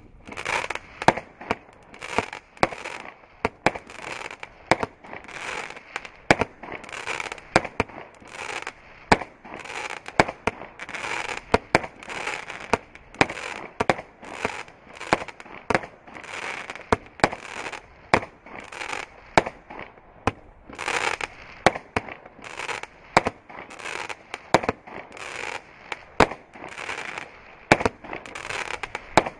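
Firework battery (64-shot cake) firing green comets and coloured bouquets: sharp launch reports about twice a second, each followed by a crackling hiss from the stars.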